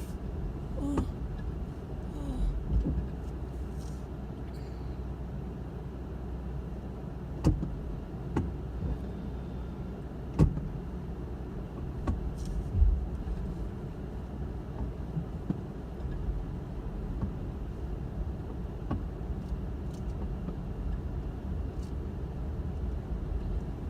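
A car driving, heard from inside the cabin: a steady low rumble of engine and tyres, with a few short sharp knocks or clicks now and then.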